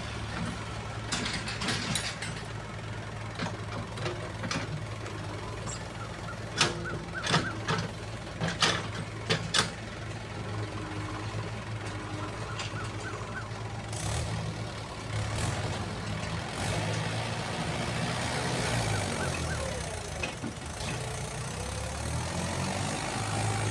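JCB 3DX backhoe loader's diesel engine running under load as it digs and loads soil, with a run of sharp metal clanks from the bucket and arm about six to ten seconds in. In the second half the engine note rises and shifts as the tractor drives off with its loaded trolley.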